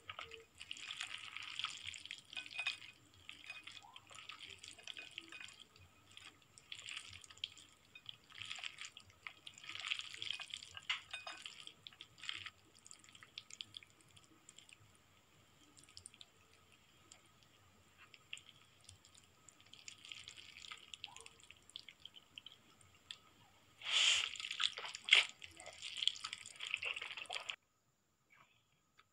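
Close-miked eating of noodles: wet slurping and chewing in repeated short bursts with pauses between them, louder and denser near the end before stopping suddenly. A faint steady high whine sits underneath.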